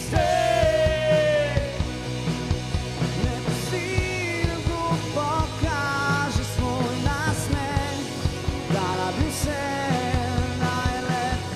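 Live rock band playing: drum kit keeping a steady beat under bass guitar, electric guitar and keyboard, with a lead melody that slides and bends in pitch over them.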